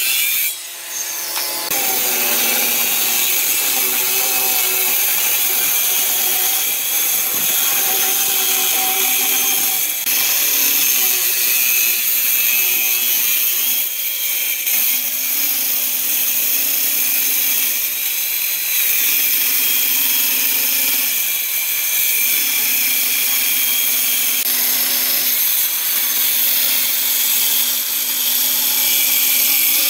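Handheld electric circular saw cutting lengthwise through a thick hardwood slab: the motor runs steadily under load as the blade rips the wood, with a short break about a second in.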